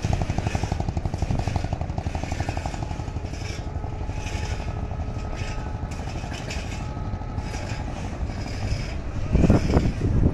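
ALCO diesel-electric locomotive approaching, its engine rumbling steadily with a fast, even throb. The sound grows louder in a surge about nine seconds in.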